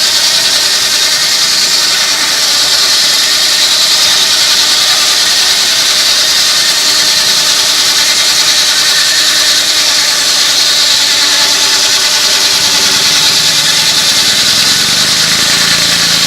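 Steam-powered sawmill running: a loud, steady machine noise with a strong hissing high band and fainter hum underneath, and a low hum coming in about three-quarters of the way through.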